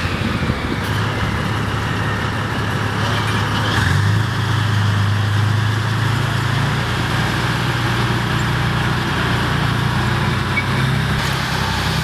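Heavy vehicle engine running steadily, picking up slightly about four seconds in.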